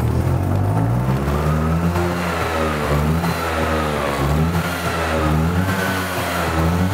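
Vintage Vespa P200 scooter's single-cylinder two-stroke engine running just after a flooded start, its revs rising and falling repeatedly as the throttle is worked.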